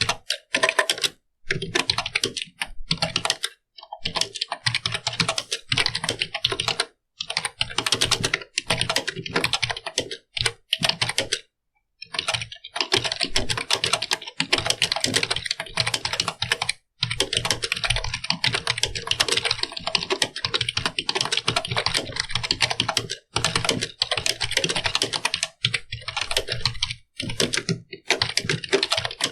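Computer keyboard being typed on quickly: fast runs of key clicks, broken every few seconds by brief pauses.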